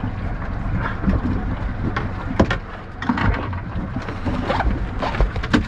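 Wind buffeting the microphone over the low rumble of a boat's outboard motor, with scattered knocks and clunks on the boat several times.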